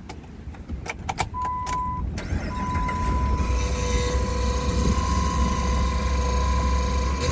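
2007 Dodge Ram 1500's 5.7 L Hemi V8 starting: a few clicks, then the engine catches about two seconds in and settles into a steady idle with a high, constant whine over it. The owner says the mechanic blamed the starter, but he now suspects the transmission or torque converter.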